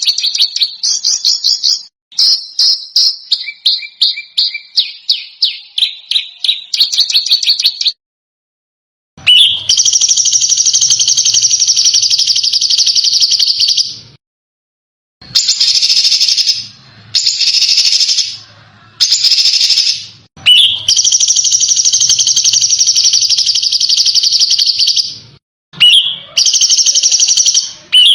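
Recorded songbird song used as masteran tutor material. First comes a rapid string of sharp, high repeated notes for about eight seconds. Then, after a brief silence, there are long, dense, harsh trills in repeated phrases that start and stop abruptly.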